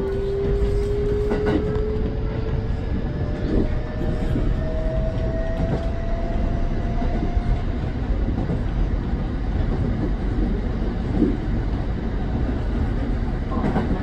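Kintetsu electric train heard from inside the driver's cab while running: a steady rumble of wheels on rail with a clack now and then, and a motor whine that rises slowly in pitch over the first half as the train picks up speed, then fades out.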